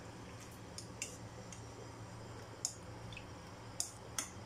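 A few scattered light clicks over a faint steady low hum; near the end, chopsticks stir raw marinated shrimp in a bowl with soft wet clicks.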